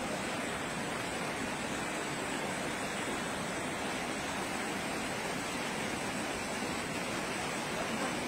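Muddy floodwater flowing fast down a street, a steady, unbroken rushing noise.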